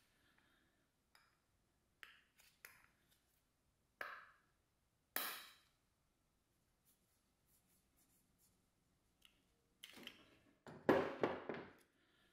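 Scattered light metal clicks and clinks as a small-engine carburetor is handled and gripped with tongue-and-groove pliers, then a quick run of loud clacks near the end as metal hand tools are set down on a wooden workbench.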